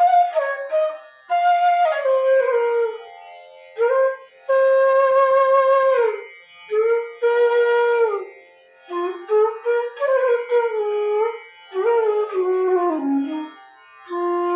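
F-sharp bass bamboo flute (bansuri) played in slow melodic phrases, with slides and bends between notes and short breath gaps between phrases. It is being tone-checked in F, with Ni taken as Sa.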